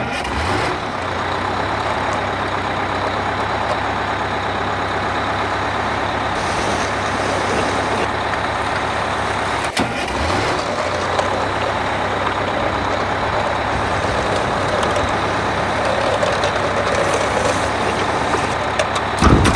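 Truck engine idling steadily, with a brief break about ten seconds in and a sudden stop at the end.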